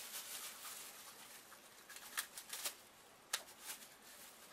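Clear plastic bag faintly crinkling and rustling as it is pulled open by hand, with a few sharp crackles of the plastic between about two and four seconds in.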